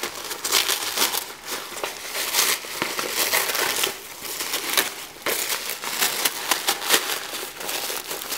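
Tissue-paper gift wrapping being crumpled and torn open by hand: an irregular run of crinkles and rustles.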